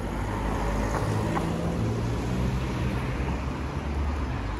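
Car driving past on a city street, a steady low rumble of engine and tyres.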